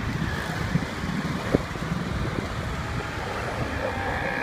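Street traffic noise with wind buffeting the microphone while riding along a city road, and a single sharp knock about a second and a half in. A faint steady high tone comes in near the end.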